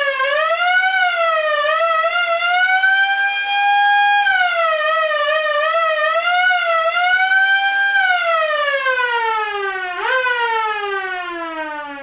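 Vintage police car siren wailing. Its pitch wavers and climbs to a held high note, then winds down from about eight seconds in. It jumps back up briefly near ten seconds and falls away again, fading near the end.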